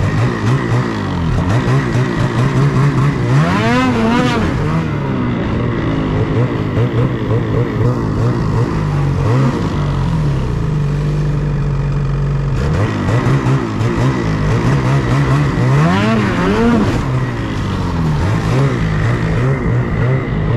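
Ski-Doo Freeride snowmobile's two-stroke engine running under way, its pitch wavering with the throttle and sweeping up sharply in two hard revs, a few seconds in and again late on, with a short steady stretch between.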